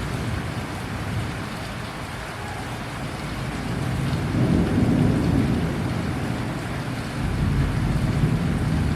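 Heavy rain falling steadily, with a low rumble of thunder swelling about four seconds in and again near the end.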